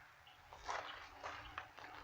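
Faint rustles and a few light clicks from new spark plug wires being handled and fitted, over a low steady hum.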